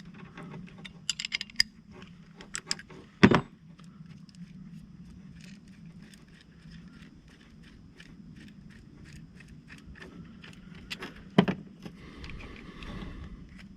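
Small metallic clicks and clinks of a hand wrench working the bolts of a bolt-type cable swaging tool on a copper swage sleeve, with two sharp metal knocks about three seconds in and again near eleven seconds.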